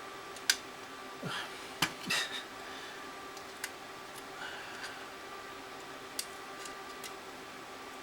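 Small hand tools clicking and scraping against the insides of a 3rd-generation iPod as its broken headphone jack is worked loose: a sharp click about half a second in, a short scrape and a few clinks around two seconds in, then scattered light ticks.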